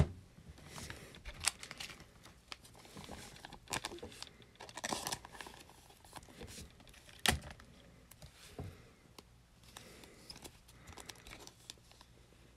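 Trading cards being handled by hand: cards rustling and flicking as they are sorted, and plastic top loaders and sleeves clicking, with a few sharp clicks, the loudest right at the start and about seven seconds in.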